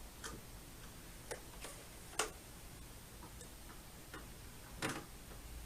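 Scattered light clicks and taps at irregular intervals, the loudest a little past two seconds in and just before five seconds: a screwdriver working the screws that fasten the stand onto a TV.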